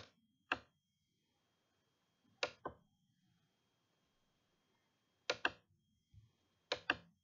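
Four pairs of sharp clicks, each pair two quick clicks, spaced a couple of seconds apart, over a faint steady high-pitched whine.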